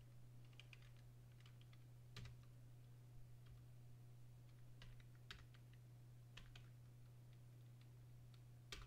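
Faint, scattered keystrokes on a computer keyboard, a few at a time with pauses between, over a steady low hum.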